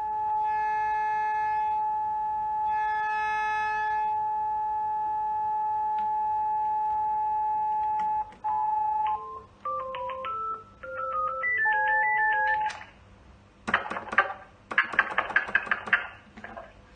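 Telephone tones: a steady line tone for about eight seconds with two short chiming tones over it in the first four seconds, then a run of short beeps stepping up and down in pitch, then a clatter of clicks near the end.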